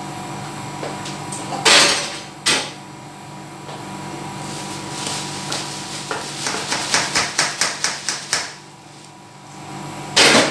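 Pots and pans being handled on a kitchen hob: two loud clanks in the first few seconds, then a run of about ten quick taps at roughly five a second, and one more loud clank near the end. A steady electrical hum runs underneath.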